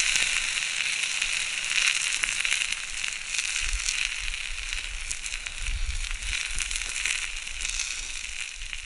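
Wood campfire crackling and popping over a steady hiss.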